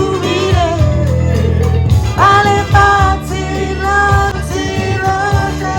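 Background pop music with a steady bass line and a sung vocal melody.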